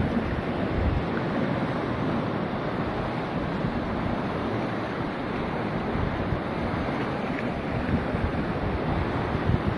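Fast, shallow river rushing over rocks in a steady wash of water noise, with wind rumbling on the microphone.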